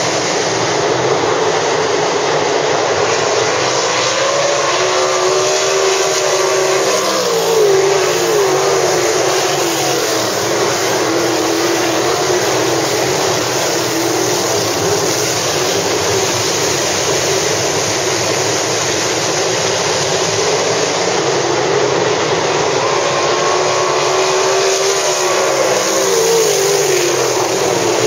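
World of Outlaws winged sprint cars racing on a dirt oval, their 410 V8 engines running at full throttle in a continuous loud drone. Twice, about five seconds in and again near the end, the engine pitch climbs and then drops away as the pack sweeps past.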